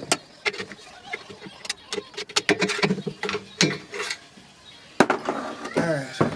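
Hand tools working on a GM LS V8 engine block as the main caps are removed: an uneven run of sharp metal clicks and clanks, some ringing, with a short squeaky metal scrape near the end.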